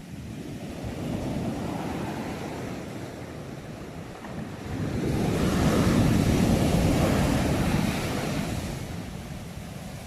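Ocean waves breaking and washing in. A smaller surge comes about a second in, then a louder wave breaks about five seconds in and rushes for a few seconds before easing off.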